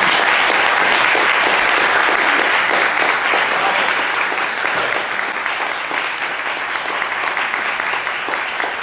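Audience applauding, a dense, even clapping that eases off slightly toward the end.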